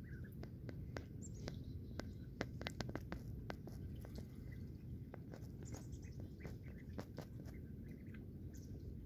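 Mallard ducklings dabbling at the water's edge: faint, irregular rapid clicks from their bills, with a few soft peeps, over a low steady rumble.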